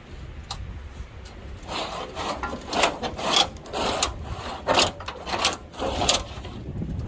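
A series of rough scraping or rasping strokes, about one every half second to second, starting a couple of seconds in, over wind rumbling on the microphone.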